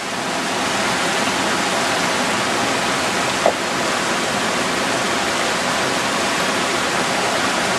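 Mountain stream rushing over boulders in small cascades: a steady, loud hiss of running water.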